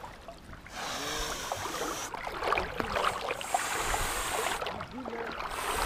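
River water splashing and sloshing close to the microphone, with dense small splashes for a few seconds that ease off briefly near the end.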